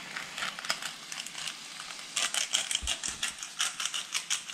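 Hand-twisted pepper grinder cracking peppercorns over the pan: a rapid run of crisp crunching clicks, faint at first and denser and louder from about halfway.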